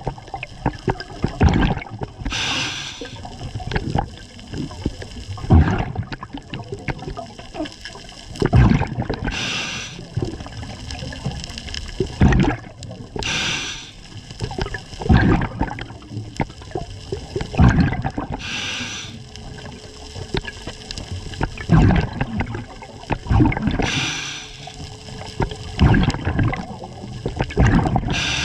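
Scuba diver breathing through a regulator underwater: a short hissing inhale every four to five seconds, each followed by the low bubbling of exhaled air.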